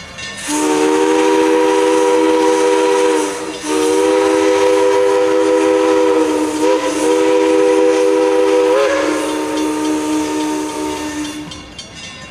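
A 4-6-0 steam locomotive's whistle blowing, several notes sounding together as a chord over a hiss of steam. It breaks off briefly about three seconds in, then sounds again with the pitch wavering twice; near the end the upper notes drop away and the lowest note trails on a little longer before stopping.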